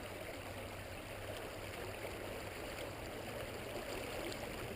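A stream running steadily: an even, low rush of flowing water, with a few faint light ticks.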